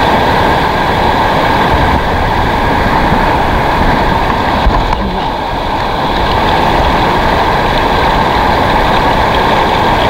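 Shallow river rapids rushing over rocks close around the microphone, a loud, steady rush of water, with a brief knock near the middle.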